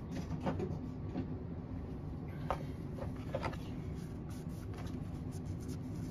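A cloth rubbing along the steel blade of a folding knife as it is wiped down, with a few light clicks and knocks from handling the knife.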